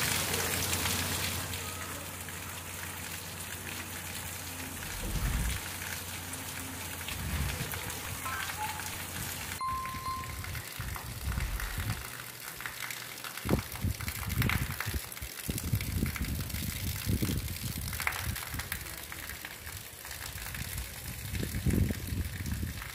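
Heavy rain pouring down, a steady hiss. It breaks off abruptly just before halfway and resumes as a second downpour. In the second half, low thuds and rumbles come and go over the rain.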